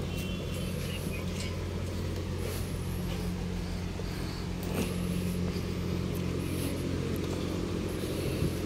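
Steady road traffic noise: a continuous low hum of vehicle engines and tyres, with no single event standing out.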